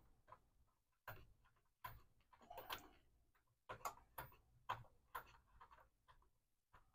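Faint, irregular clicks and ticks of a 10 mm metal fastener being worked out and lifted free by gloved fingers.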